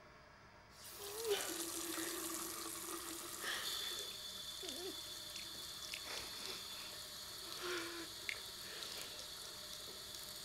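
A chrome single-lever washbasin tap is turned on and runs steadily into the basin, starting about a second in, with the water splashing over hands held under the stream.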